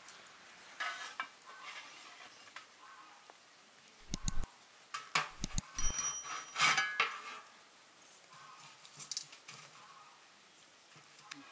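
Dishes and utensils knocking and clinking against each other, with scattered taps and a busier run of louder clinks, some with a brief metallic or glassy ring, from about four to seven seconds in.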